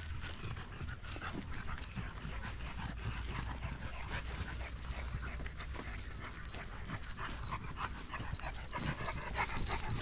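Footsteps crunching on a dry dirt forest trail, with dogs walking alongside and panting, over a steady low rumble. The ticks get sharper and louder near the end as a dog comes right up close.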